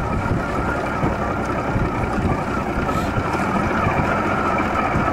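Wind noise on the microphone: a steady low rumble with irregular gusty buffeting.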